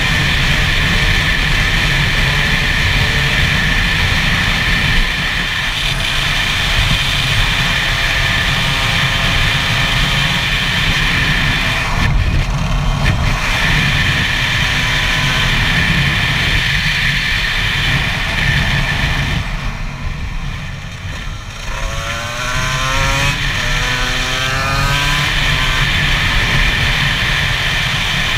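Gas Gas EC SMR 125 two-stroke single-cylinder engine running under load, mixed with steady wind rush on the helmet camera. About twenty seconds in the throttle eases off briefly, then the engine revs up again, rising in pitch as the bike accelerates.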